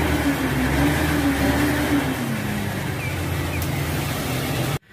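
Truck engine running steadily, its pitch dropping slightly about two seconds in, then cutting off abruptly near the end.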